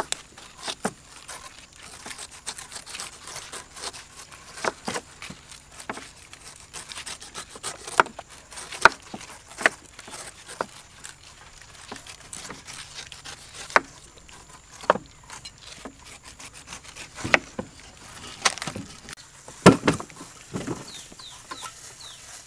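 Cleavers cutting into whole pineapples and knocking on wooden chopping boards: irregular sharp knocks, several much louder than the rest.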